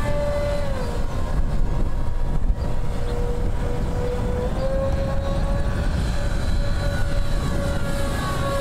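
Electric motor and propeller of a radio-controlled model plane whining steadily, its pitch dropping about a second in and rising a little partway through as the throttle changes, with wind rumble underneath.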